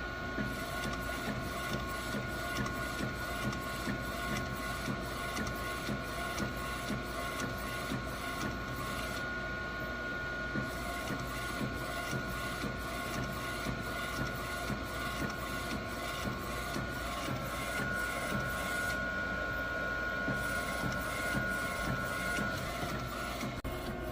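Procolored L1800 DTF printer running a cycle: a steady motor whine with regular mechanical clicks, about two or three a second.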